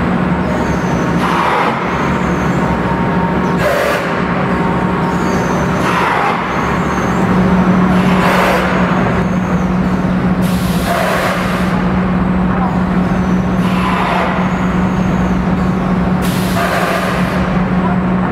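Egg tray pulp-moulding production line running: a steady machine hum with a short hiss of air every two to three seconds as the forming machine cycles.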